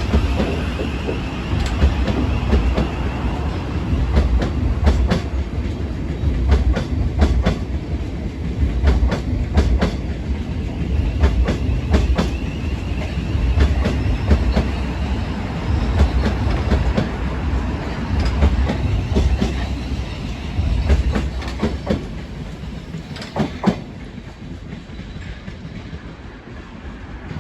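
Class 700 electric multiple unit passing, a loud steady rumble with many sharp clicks of wheels over rail joints. It dies away about four-fifths of the way through.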